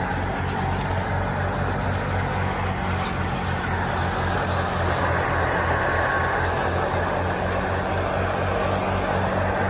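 Fiat 480 tractor's diesel engine running steadily while driving a wheat thresher: a constant throb with a broad rushing noise over it.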